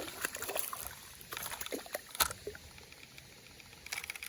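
Small clicks and light rustling and splashing as a small bass is handled and unhooked, with one sharper click about two seconds in.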